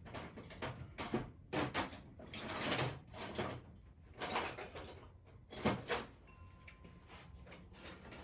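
Metal hand tools clattering and a tool drawer sliding as a toolbox is rummaged for a smaller pair of pliers, in several short bursts of rattling.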